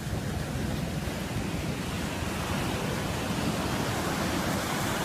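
Ocean surf breaking and washing up the beach: a steady rushing noise with no break.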